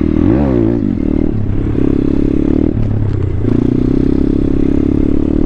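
Thumpstar 140cc pit bike's single-cylinder four-stroke engine revving up and falling back about half a second in, then running under throttle with two brief dips, held at a steady pitch through a wheelie near the end.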